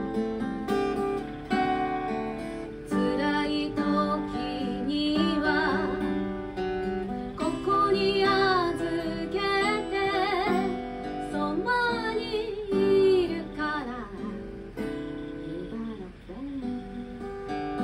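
A woman singing a song in Japanese, accompanying herself by strumming chords on an acoustic guitar.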